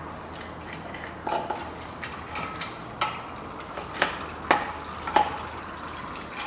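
The last of the automatic transmission fluid dripping from the open pan drain hole into a catch container: irregular single drops landing with short plinks, about one a second, over a faint low hum.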